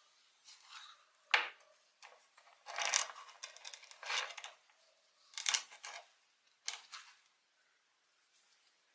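Toy packaging being opened by hand: a string of short crinkling, rustling bursts, about one a second, then it goes quiet near the end.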